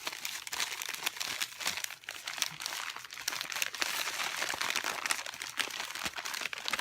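Packing wrap crinkling and crackling as it is handled and pulled open to unwrap a crystal.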